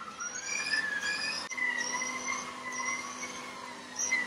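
Electric motor whine from a treadmill and the Lego Technic Porsche 911 RSR RC car driving on its belt: several steady whining tones that waver slightly in pitch. There is a click about a second and a half in, after which a low hum joins.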